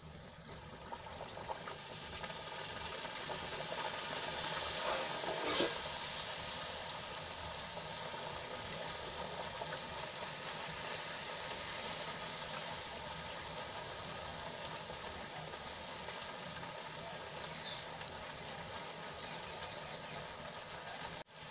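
Round farsi puris deep-frying in hot oil in a metal kadai: a steady sizzle that grows louder about four seconds in as the puris go into the oil, with a few light clicks over the next couple of seconds.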